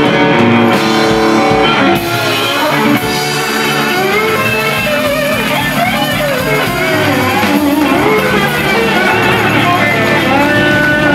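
Live blues band playing: electric guitars, slide guitar, electric bass and drums. Held notes give way about two seconds in to gliding, wavering lines of pitch.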